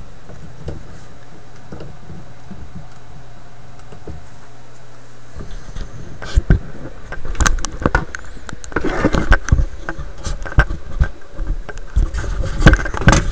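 A steady low hum, then from about five seconds in an irregular run of knocks, bumps and scrapes: handling noise as the camera is picked up and set in a new position.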